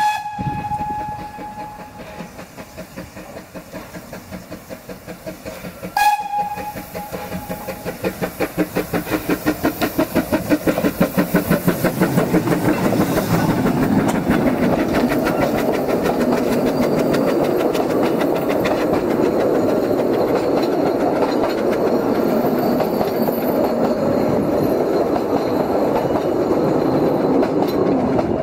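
Vale of Rheidol Railway narrow-gauge steam locomotive, a 2-6-2 tank engine, pulling away. A whistle blast ends just as it begins and a second short whistle sounds about six seconds in. Then the exhaust beat starts slowly and quickens into a rapid, steady run with the carriages rolling behind.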